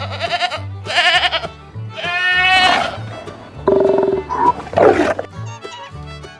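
Farm animal calls over background music with a steady, repeating bass line: two short wavering bleat-like calls in the first second and a half, a longer call about two seconds in, and more calls around four to five seconds.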